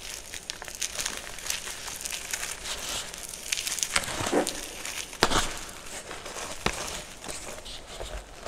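Dyed gym chalk being crushed and crumbled by hand: a steady crackly crunching of chalk pieces and powder, with a couple of sharper, louder crunches about halfway through.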